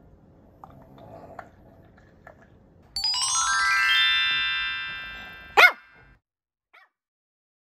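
A rising chime-like sound effect sweeps upward for about two seconds starting about three seconds in. It is followed by a single short bark from a Pekingese, the loudest sound, near the end.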